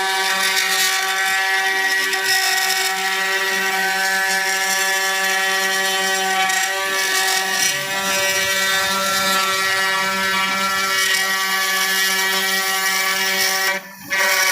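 CNC router spindle running steadily while its bit carves a wooden board, a constant pitched whine over cutting noise, which drops out briefly near the end.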